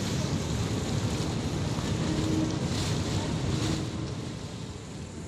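Ferry's engines running with a low, steady rumble, with wind on the microphone and water washing against the hull; it eases slightly near the end.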